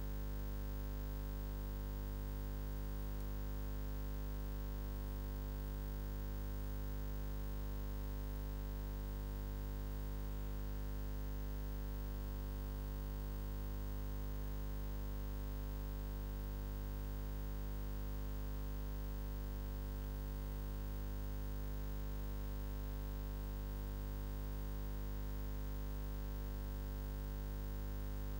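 Steady, deep electrical mains hum with a buzzy row of overtones, unchanging in pitch and level.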